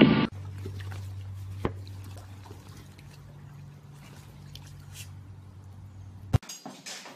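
Faint water sounds, small drips and lapping, from a swimming pool where an inflatable kiddie pool floats, over a steady low hum. A sharp click comes near the end.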